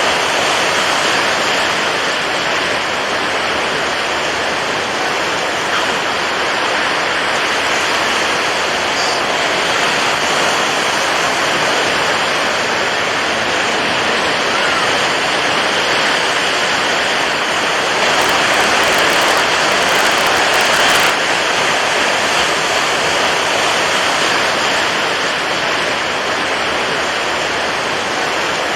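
Steady rush of water waves, an even wash of noise that swells slightly louder for a few seconds about two-thirds of the way in.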